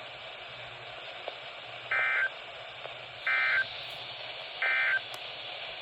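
Three short bursts of EAS SAME data tones about 1.3 s apart: the end-of-message code closing the weather alert. They play through a radio receiver over a steady static hiss.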